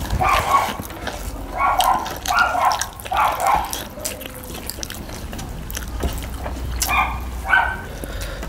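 A dog barking in short bursts: a run of barks in the first few seconds, then two more near the end.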